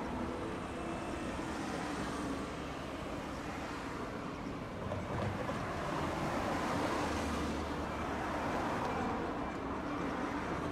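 Steady vehicle noise, a low rumble with hiss, the rumble swelling a little in the middle.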